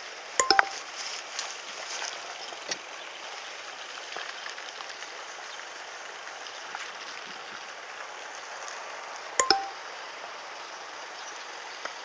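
Two sharp metallic clinks with a short ringing note, about nine seconds apart, over a steady outdoor hiss.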